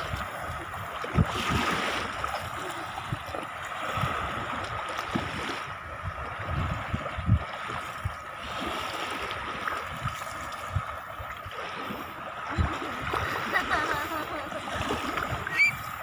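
Shallow sea water washing in and splashing around a child playing in the surf: a continuous wash of small waves with scattered low thumps and splashes.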